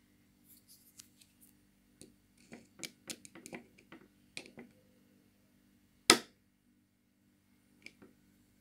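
Small metal clicks and taps of a screwdriver and a miniature ball bearing being fitted into a baitcasting reel's side frame, in place of a plastic bushing. A quick run of clicks from about two to five seconds in, then one sharp, loud click about six seconds in, and two faint ticks near the end.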